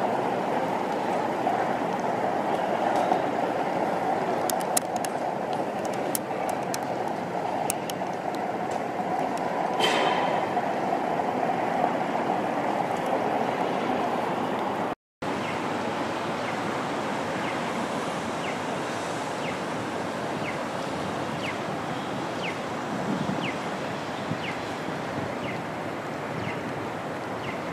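Steady rushing noise without words, broken by a brief dropout about halfway through. In the second half, light regular ticks come a little faster than one per second.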